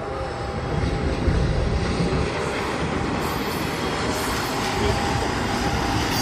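CC 201 diesel-electric locomotive moving slowly while shunting a rescue wagon: its engine runs with a low rumble along with the wheels on the rails, growing louder over the first second or so as it approaches, then holding steady.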